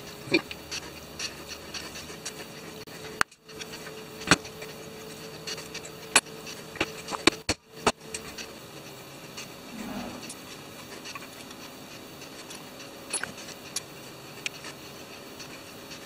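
Scattered sharp clicks and knocks of small metal parts, bolts and hand tools being handled and tapped while forcing a tight-fitting bolt into a carbon-fibre drone frame, the loudest knock about four seconds in. A faint steady hum runs under the first half.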